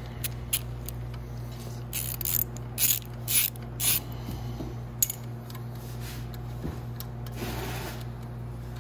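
A socket ratchet clicking in short bursts as an 8 mm drain bolt is backed out of a motorcycle carburettor, mostly in the first four seconds, over a steady low hum.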